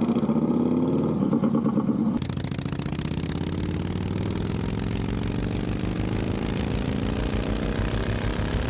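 V-twin motorcycle engine running, with a sudden change about two seconds in. After that the bike pulls away, its engine pitch rising steadily under acceleration, with wind rushing on the microphone.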